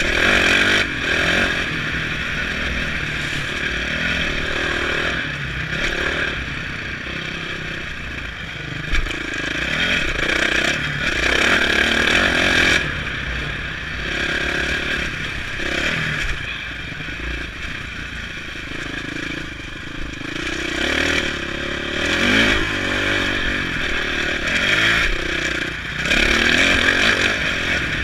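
Dirt bike engine revving hard and backing off again and again as it is ridden around a motocross track, heard from the rider's helmet camera. Clatter from the bike over the rough ground runs under the engine.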